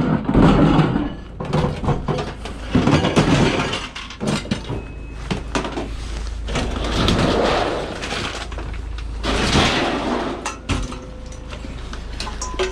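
Metal scrap being handled: repeated clattering knocks and scraping as the parts are pulled about, over a steady low hum.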